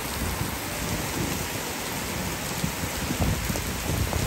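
Heavy rain pouring steadily onto wooden decking and foliage.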